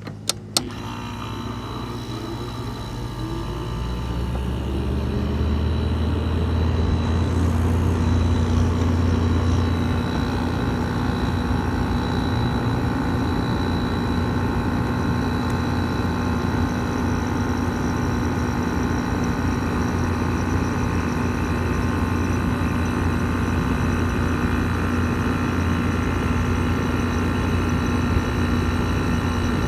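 Frigidaire 5000 BTU window air conditioner starting up, heard from its outdoor side. A click comes first. Then the hum of its motors rises in pitch and loudness over about five seconds and settles into a steady running drone.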